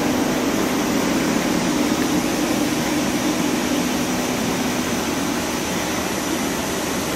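Steady machinery hum and hiss with a low constant tone, unchanging throughout.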